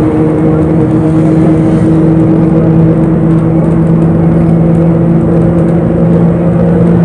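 Bus engine heard from inside the cabin while the bus drives, a steady drone with road rumble.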